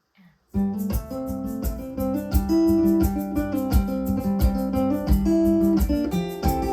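A small band's instrumental intro starting abruptly about half a second in: strummed and picked guitars over a steady percussion beat.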